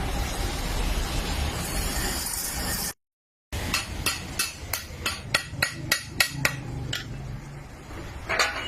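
A hammer tapping metal: about a dozen sharp strikes, roughly three to four a second, setting parts of a Yamaha FZS motorcycle clutch basket into place, with a single metallic clink near the end. Before the taps there is a few seconds of steady workshop noise that cuts off abruptly.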